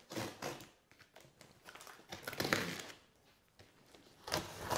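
Cardboard box being opened: packing tape slit and pulled off with scratchy, crinkling rasps in a few short spells, with cardboard rustling.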